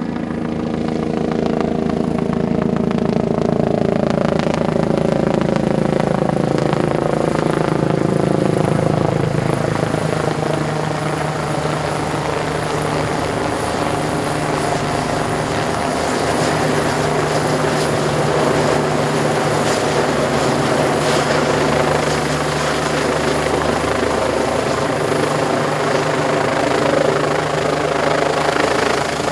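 Disaster-prevention helicopter's rotor and engine running loud and close, its pitch sinking over the first ten seconds or so and then holding steady.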